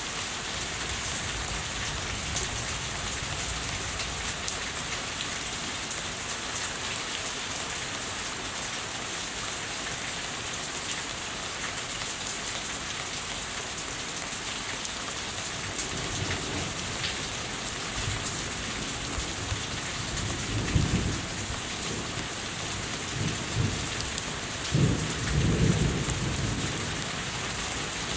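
Steady rain falling off a house. Rolling thunder rumbles in from about halfway, swelling twice, with the loudest rumble near the end.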